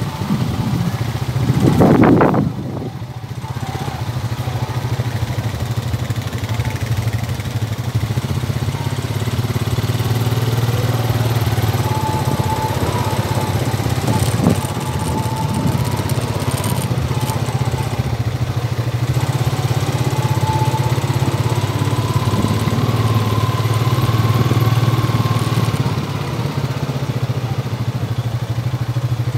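Quad bike engine running steadily while riding along a dirt road, with a higher whine that rises and falls as the speed changes. A brief loud rush about two seconds in.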